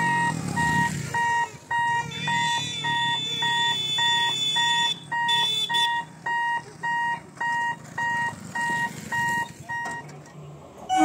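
Electric level-crossing warning buzzer beeping about twice a second as the boom barriers close, stopping near the end. Faint bird chirps are heard along with it.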